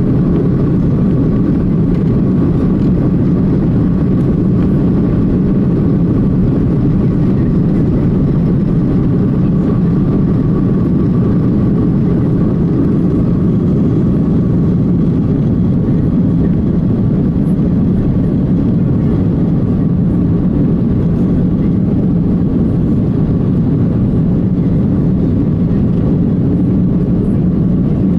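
Cabin noise of an Airbus A330-300 with Rolls-Royce Trent 772B turbofans at takeoff thrust during the takeoff roll, liftoff and climb-out: a loud, steady rumble with a steady whine above it.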